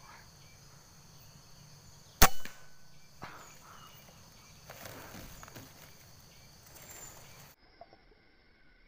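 A single air-rifle shot about two seconds in, a sharp crack with a short tail, followed by faint rustling.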